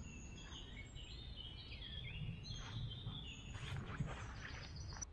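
Wild birds singing, a string of short whistled phrases and chirps over low outdoor background noise, with a brief knock about four seconds in.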